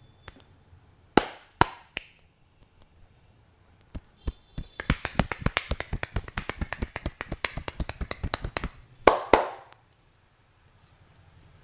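Percussive massage by hand: three sharp hand strikes about a second in. Then a fast even drumming of hand strikes on the body, about eight a second for some four seconds, ends in two loud strikes.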